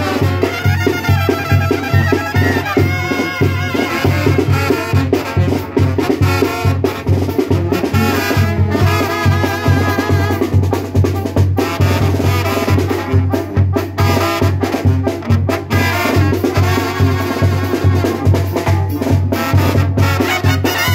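Lively Latin brass-band music, trumpets playing a melody over a steady low beat.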